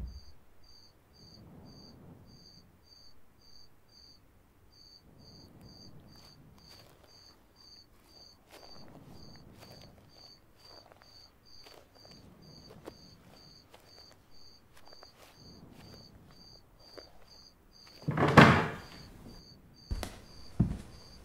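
Crickets chirping steadily at about two chirps a second, over faint low swells of rustling. Near the end a wooden door opens loudly, followed by two short clicks.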